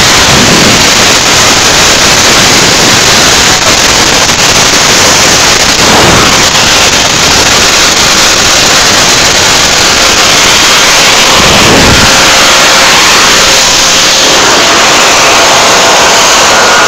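Boeing 757 turbofan engine running on the ground for a leak check of its chip detector: a loud, steady roar that overloads the phone's microphone, with a faint steady whine in it near the end.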